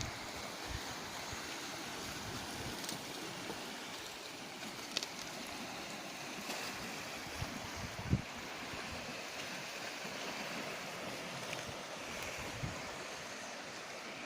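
Calm sea washing gently against the shore, a steady hiss of water, with a few brief low bumps on the microphone.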